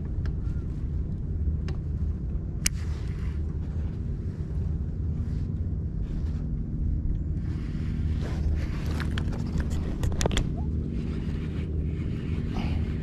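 Steady low drone of a motorboat engine, with a few sharp clicks: one about three seconds in and a quick pair around ten seconds in.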